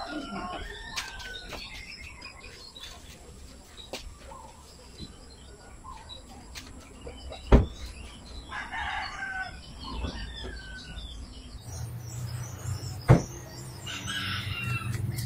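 A rooster crowing three times, each crow a rising then falling call. Two sharp thuds fall between the crows, one about halfway through as the car door is shut and one near the end.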